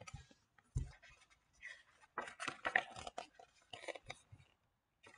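Small hardback picture book being handled and opened: soft, irregular scratching and rustling of paper and card, with a dull knock a little under a second in.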